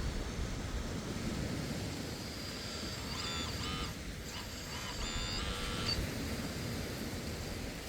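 Hydraulic excavator's diesel engine running steadily with a low rumble. About three seconds in, a few short high-pitched warbling tones come and go over the next three seconds.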